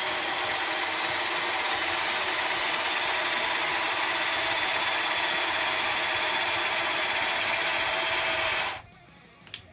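Tramontina 10.8 V cordless drill-driver, which has no hammer mode, running steadily at full speed with a masonry bit boring into a clay roof tile. It cuts off near the end as its battery runs flat.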